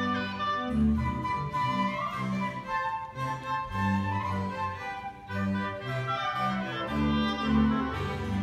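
Classical chamber ensemble playing a piece: a flute melody over violin, harpsichord and double bass, with the bass playing steady repeated notes underneath.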